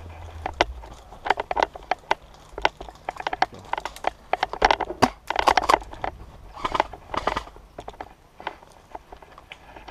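Footsteps swishing through tall grass, with irregular rustles and clicks of gear and clothing.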